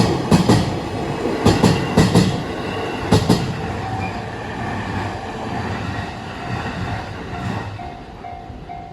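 JR Saikyō Line electric commuter train passing, its wheels clacking over a rail joint in quick groups of two to four as each pair of bogies goes by. The clacks stop after about three seconds, and the running noise fades as the train moves away.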